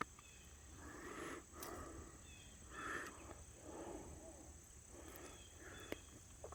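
Faint outdoor ambience: a steady high-pitched insect drone with a few soft, muffled sounds underneath.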